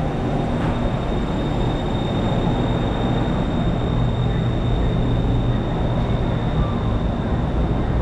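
Electric commuter train running: a steady rumble with a thin, high whine that comes in shortly after the start and fades near the end.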